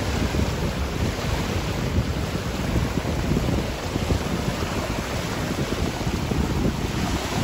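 Strong storm wind gusting and buffeting the microphone, with a deep, rushing rumble that rises and falls irregularly.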